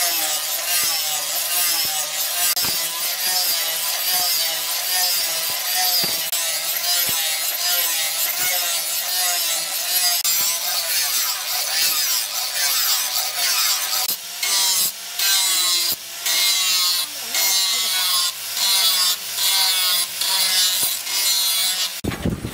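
Handheld angle grinder with an abrasive disc grinding a steel machete blade, its whine wavering as the disc bears on the metal. In the second half the grinding breaks into short strokes about twice a second as the disc is lifted and pressed back.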